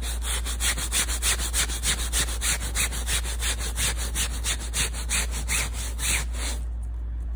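A soft hand brush scrubbing dampened sofa upholstery fabric in quick back-and-forth strokes, about five a second. The scrubbing stops near the end.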